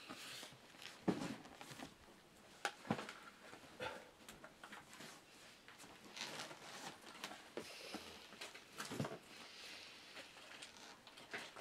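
Quiet, irregular small clicks and knocks with a few short high whirs, as from a 1/50-scale radio-controlled hydraulic excavator model being handled and worked.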